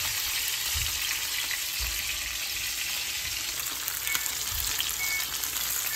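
Snapper frying in hot oil in a frying pan: a steady sizzle, with a few soft low knocks.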